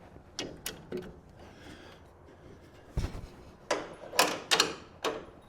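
Scattered sharp clicks and knocks from hand work on a truck canopy shell's fittings, with one dull thud about three seconds in and a quick cluster of clicks near the end.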